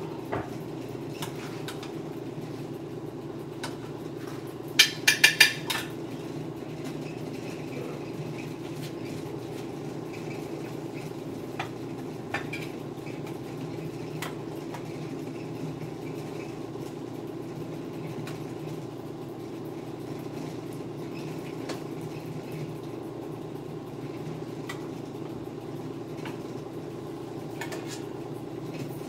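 Metal serving spoon clinking and scraping against cooking pots as food is dished out, with a quick run of sharp, ringing clinks about five seconds in and scattered lighter taps after, over a steady low hum.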